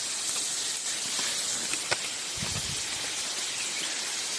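Steady hiss of distant rushing water from the waterfall and its stream, with a short low rumble about two and a half seconds in.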